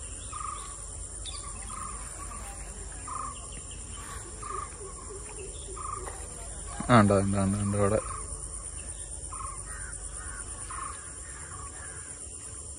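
Outdoor ambience of a steady high-pitched insect chorus, with a bird calling a short note over and over.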